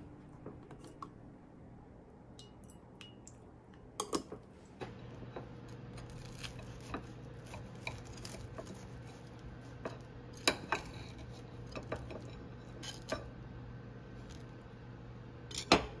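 A knife cutting through a toasted sandwich on a ceramic plate: scattered crunches and sharp clinks of the blade against the plate, the loudest just before the end. A low steady hum runs underneath.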